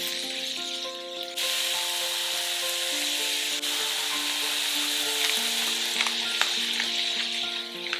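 Diced onions sizzling in oil in a frying pan, the hiss starting abruptly about a second in. In the second half a pepper mill grinds over them with a few sharp clicks.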